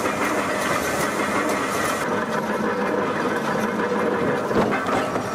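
Steady mechanical din of hot-forging shop machinery running, with one sharp knock about four and a half seconds in.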